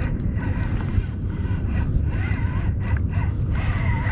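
Wind buffeting the microphone on the open water, a steady low rumble with faint wavering tones above it.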